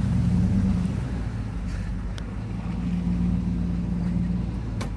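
Truck engine and drivetrain droning steadily while driving along a muddy dirt trail, heard from inside the cab. There is a light click about two seconds in and a sharper knock near the end.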